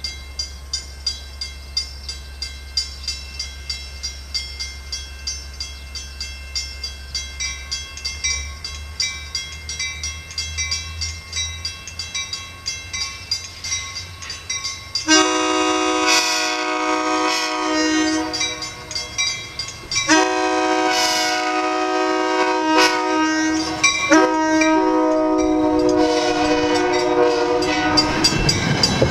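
A grade-crossing bell rings steadily, about two strokes a second, as a push-pull commuter train approaches. From about halfway through, the multi-chime horn on the leading cab car sounds the long, long, short, long grade-crossing signal. Near the end the train rushes past close by with wheel and rail noise.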